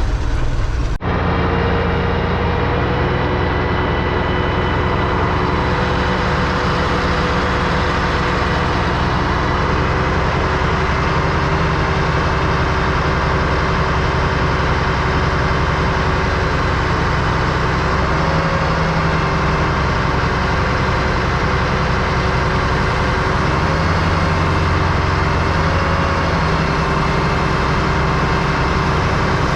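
Heavy diesel truck engine running steadily, with a sharp break in the sound about a second in.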